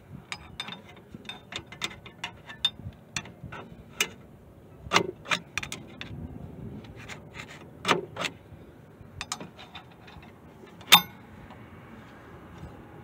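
Irregular metallic clicks and clinks of a steel tool and drum-brake hardware (shoes, springs, adjuster) being worked into place on a rear drum brake backing plate, with one sharper clink about eleven seconds in.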